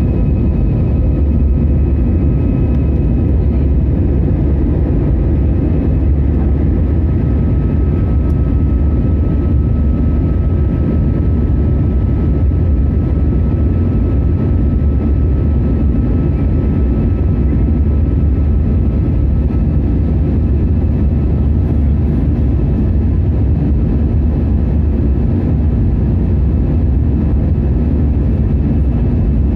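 Steady cabin drone of an Airbus A320-200 in flight: a deep, even rumble of engines and airflow with a faint steady whine above it.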